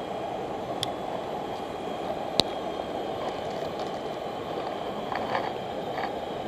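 Shallow stream rushing steadily over rocks, with one sharp click about two and a half seconds in and a few faint ticks later on.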